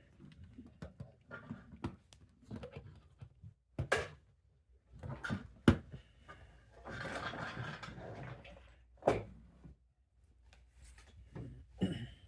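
Lego bricks being handled: scattered sharp plastic clicks and knocks as pieces are picked up and snapped together, with a stretch of rummaging and rustling in the middle.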